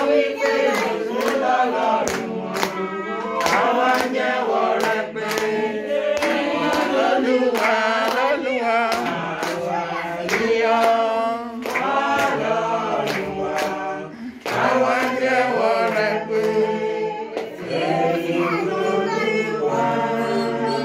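A group of people singing a song together, with steady hand clapping keeping the beat.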